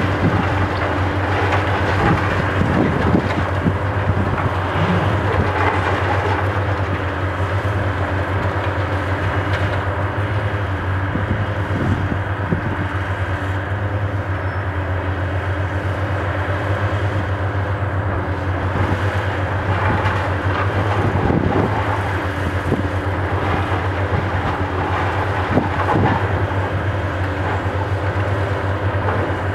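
High-reach demolition excavator's diesel engine running with a steady low hum, under a continuous rumble with irregular knocks and crunches, typical of concrete being broken and debris coming down.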